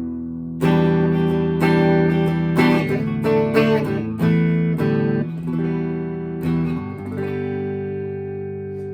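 Electric guitar played through a guitar amp's clean channel, with no reverb or delay: chords strummed about once a second, then a final chord left to ring out.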